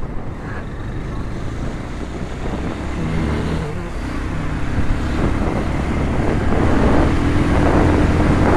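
Motorcycle engine and road noise heard from the rider's seat as the bike pulls away from slow traffic, growing steadily louder as it gathers speed.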